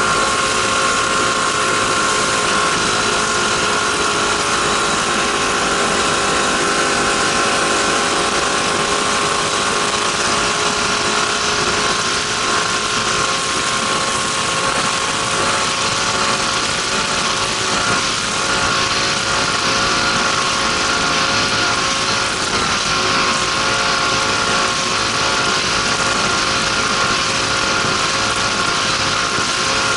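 Race powerboat's engine running steadily at speed, a constant drone with a loud rush of wind and water over it.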